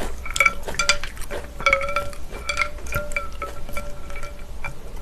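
Wooden chopsticks stirring ice cubes in cold soybean soup in a glass bowl: a run of irregular clinks against the glass, each leaving a short ringing tone.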